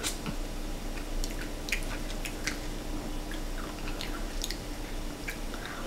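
Scattered faint clicks and small taps over a steady low hum.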